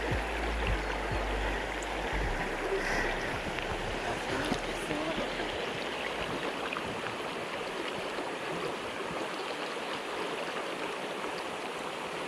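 Mountain headwater stream rushing steadily over rocks.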